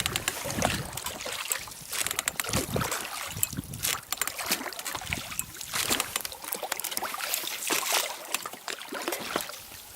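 Small rowboat at the end of a row: irregular splashes of water and knocks against the hull.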